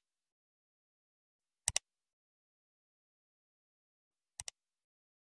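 Computer mouse click sound effect, each a quick double click, heard twice: nearly two seconds in and again, fainter, about four and a half seconds in, with dead silence between.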